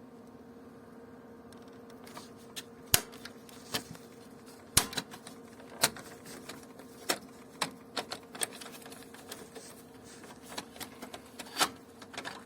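Irregular sharp plastic clicks and snaps as the printer's clips and roller parts are unclipped and handled by hand to get at the paper feed rollers, over a faint steady hum.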